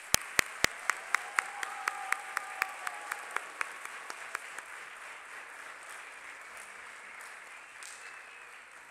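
An audience applauding, with one pair of hands clapping loudly close by at about four claps a second for the first four seconds or so; the applause thins out near the end.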